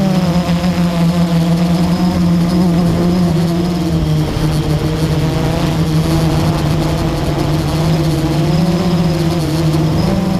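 Blade 350 QX quadcopter's motors and propellers humming steadily in flight, heard close up from its own mounted camera. The pitch dips slightly about four seconds in and rises again near the end as the motor speed changes.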